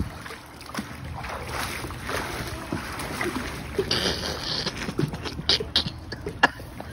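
Pool water sloshing and splashing as a person tips off an inflatable pool float into the water, with a heavier splash about four seconds in and scattered small knocks.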